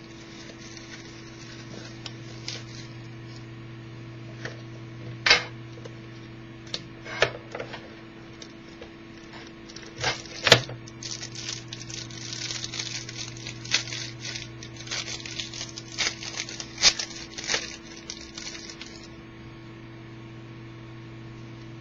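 Trading-card box and pack being opened by hand: scattered clicks and snaps of cardboard and wrapper, then a few seconds of dense crinkling from about halfway through, over a steady electrical hum.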